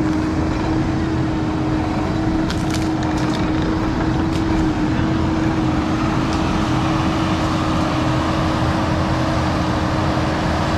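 Skid steer's diesel engine running steadily at high throttle while working a hydraulic tree shear, with a constant hum. A few short sharp cracks come between two and four and a half seconds in, typical of limbs snapping as the shear cuts and handles brush.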